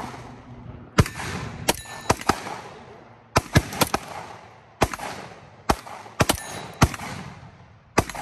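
A string of about a dozen pistol shots from a gold-plated semi-automatic handgun, fired at uneven intervals, sometimes two or three in quick succession. Each crack is followed by a short echo.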